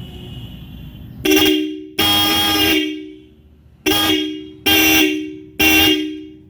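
Roots Vibrosonic electric vehicle horn sounded in five blasts: a short one, a longer one of almost a second, then three short ones. Each blast holds two close steady tones that sound together, and it rings away after each release.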